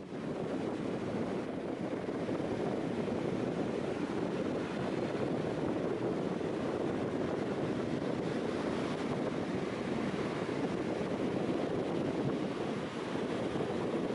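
Steady outdoor rush of wind and surf at the seashore, with wind blowing across the microphone.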